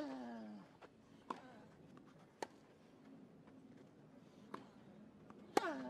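Tennis rally on a grass court: crisp racket strikes on the ball about once a second. The server grunts at the start, a short cry that falls in pitch, and a player grunts again with a shot near the end.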